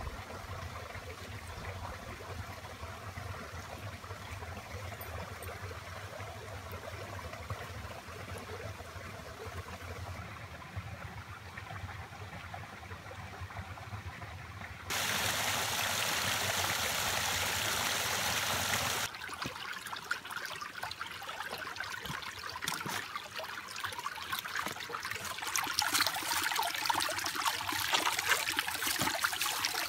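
A small creek trickling. For about four seconds in the middle there is a louder, steady rush of water. After that comes splashing and dripping, with small clicks, which grows louder near the end as hands dig at the water's edge.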